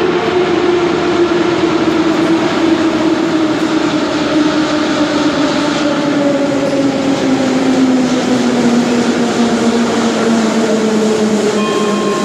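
81-717.5M/714.5M "Nomernoy" metro train pulling into an underground station. Its traction-motor whine falls steadily in pitch as it slows, over loud rolling noise of wheels on rail, and a few brief high tones come in near the end.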